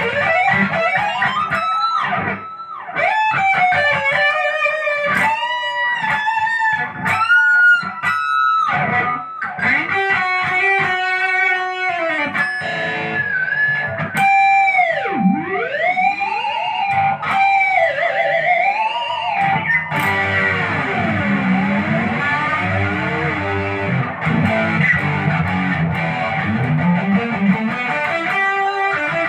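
Electric guitar with HSS pickups and a Floyd Rose locking tremolo, played solo: fast picked single notes and bends. Around the middle come whammy-bar dives, with the pitch swooping down and back up several times. Near the end it moves into a lower passage with the pitch wavering.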